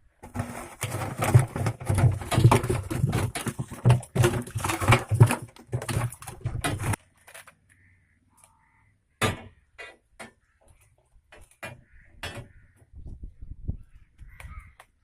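A large freshly caught fish, barramundi, thrashing and splashing for about seven seconds. It stops abruptly, and a few scattered knocks and splashes follow.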